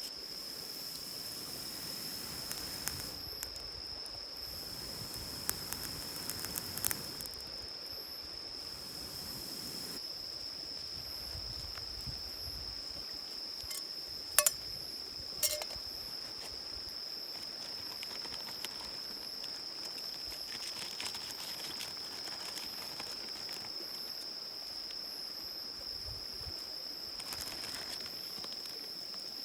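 Insects chirring in one steady, unbroken high-pitched tone, over a soft rushing background. A couple of sharp clicks come about halfway through.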